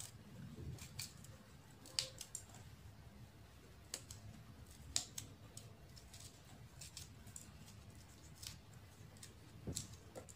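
A kitchen knife cutting large red chilies into small pieces, heard as a few sharp, separate clicks and snips spaced a second or two apart.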